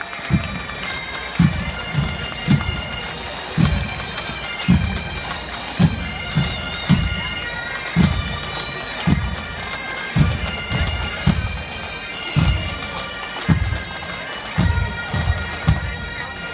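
Massed Highland bagpipes of a combined pipe and drum band playing a march tune over their drones. A bass drum beats a steady march beat, with a strong thump about once a second.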